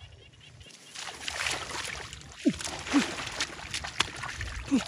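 Hands splashing and churning in shallow muddy water, a run of wet slaps and sloshes starting about a second in. A few short falling calls sound over the splashing.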